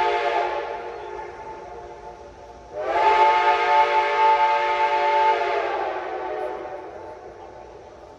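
Reading six-chime steam locomotive whistle sounding its chord, blasts in the 'calling in the flag' signal. One blast dies away in the first couple of seconds; another starts about three seconds in with a slight upward slide in pitch, holds for about two and a half seconds, then fades out.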